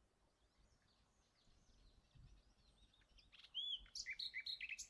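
Near silence, then a small bird chirping: a quick run of short, high chirps and whistles over the last second and a half.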